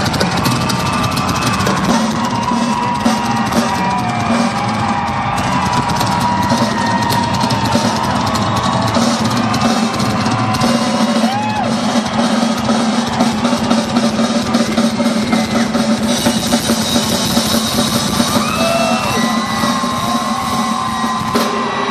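Drum kit played live in fast, dense rolls on snare over bass drum, the hits running on without a break.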